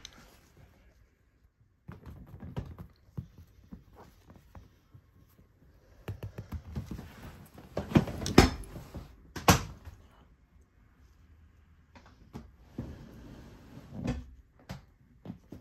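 Handling noises: irregular knocks, clicks and rustling, loudest in a few sharp knocks about eight and nine and a half seconds in.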